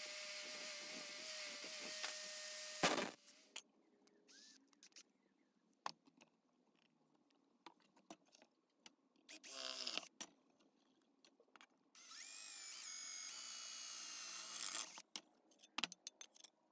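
Bench-mounted angle grinder with a cut-off disc cutting through steel pipe, ending in a sharp knock about three seconds in. Scattered clicks and knocks follow, then a second power tool runs for about three seconds with a pitch that rises as it starts.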